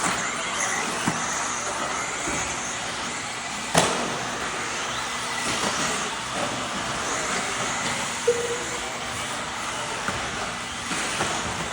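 Radio-controlled cars racing on a dirt track: a steady mix of small motor whine and tyre noise, with a sharp, loud knock a little under four seconds in and a few lighter clicks.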